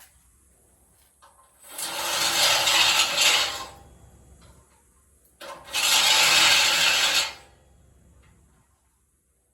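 A drill with a step bit cutting into the steel truck frame, enlarging the hole so a bed-bolt nut will fit: two cuts of about two seconds each with a short pause between.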